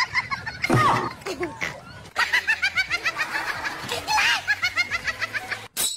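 A person laughing in a rapid string of high-pitched ha-ha pulses, starting about two seconds in and breaking off suddenly near the end.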